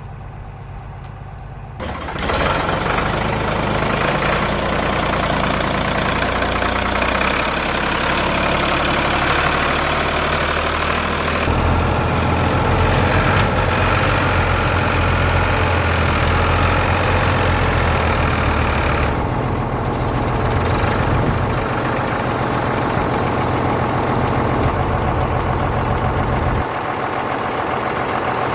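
Tractor engine running steadily. About two seconds in it comes up to higher revs with a louder, fuller noise, and its note shifts again a few times after that.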